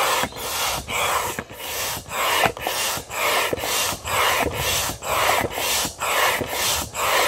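Hand-operated upright air pump inflating an inflatable kayak: a rush of air through the corrugated hose on each stroke, in a steady rhythm of about two strokes a second.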